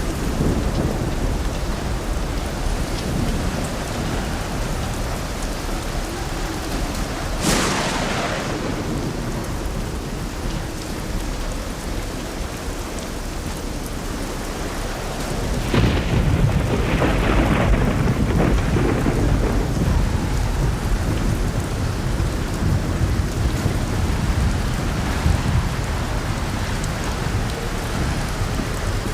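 Heavy rain falling steadily during a thunderstorm, with a sharp thunderclap about a third of the way in and a longer, louder rolling rumble of thunder a little past halfway.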